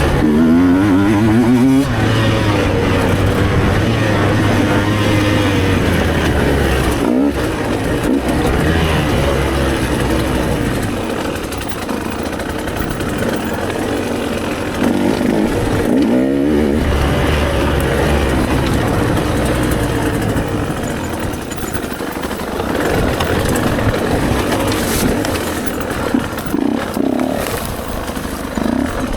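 150 cc enduro motorcycle being ridden, its engine revving up and down with the throttle and gear changes, with a sharp rise in pitch about a second in and another around the middle.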